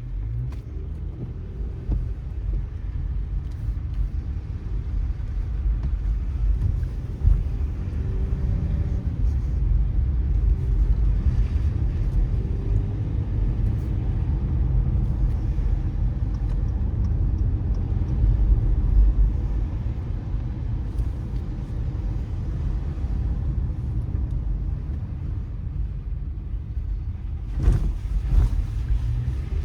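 Car driving on wet city roads: a steady low rumble of the running car and its tyres, with a faint hiss from the wet surface. A short sharp noise comes near the end.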